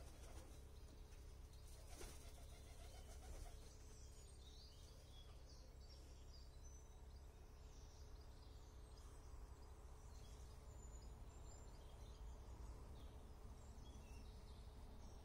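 Near silence, with faint chirps of small birds scattered throughout and a soft, low coo about two seconds in.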